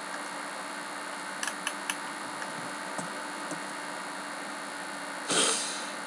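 Steady microphone hiss and low mains hum, with a few faint clicks about a second and a half in and a short breathy rush of noise near the end.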